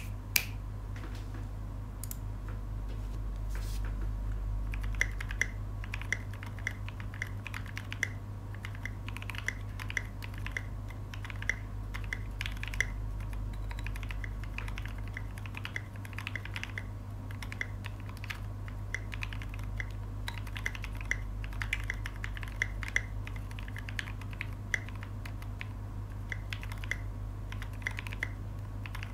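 Typing on a Duck Octagon v3 mechanical keyboard with lubed, filmed vintage Cherry MX Black linear switches and SA keycaps: a steady, continuous stream of keystrokes. Before the typing starts about five seconds in there are a few separate clicks. A steady low hum runs underneath.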